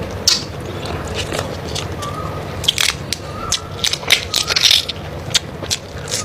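Close-miked eating: chewing and crunching food, heard as a run of sharp, irregular crackly clicks.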